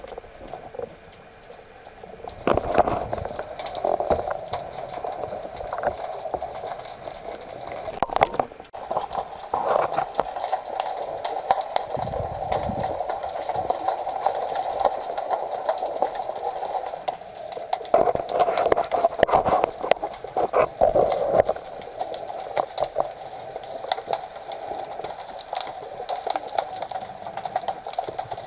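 Muffled underwater noise picked up by a camera on a speargun, with many small clicks and knocks and a few louder thumps, and a low rumble about halfway through.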